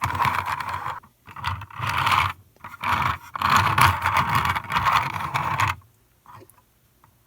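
3D-printed plastic model scraping and rubbing as it is handled, in four stretches with short breaks, then stopping about six seconds in, leaving a few faint clicks.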